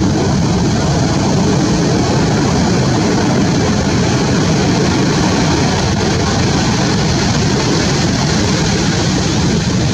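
Steady roar of ocean surf breaking and washing up a sandy beach, an even rumble that holds at the same level throughout.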